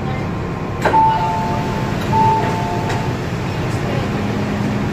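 Two-note chime, high then lower, sounding twice about a second apart from the onboard speakers of an MTR M-Train, over the steady hum of the train. A click comes just before the first chime.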